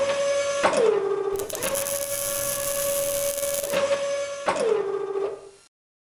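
Mechanical sound effects for an animated industrial robot arm: a steady motor whine that twice slides down in pitch as it winds down, with a hissing burst of about two seconds in the middle. The sound fades out shortly before the end.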